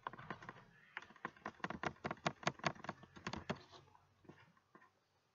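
Computer keyboard being typed on: a quick, irregular run of key clicks, several a second, thinning out and stopping near the end.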